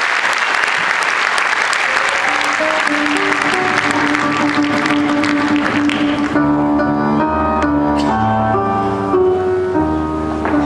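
Audience applauding over the start of slow instrumental music; the applause stops about six seconds in and the music carries on with held notes.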